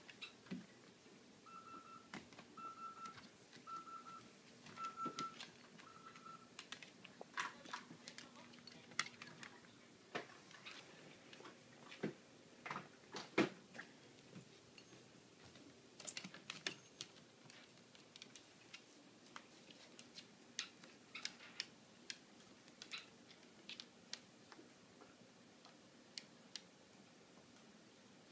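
Quiet scattered light clicks and taps, a small dog's claws on a wooden floor as it is handled. A couple of seconds in come five short electronic beeps at one pitch, about a second apart.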